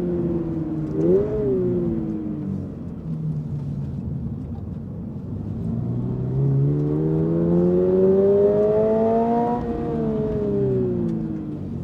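Toyota GR86's 2.4-litre boxer four-cylinder engine while driving. It gives a quick throttle blip about a second in and runs lower and steadier for a few seconds, then the revs climb for about four seconds before falling away as the throttle is lifted.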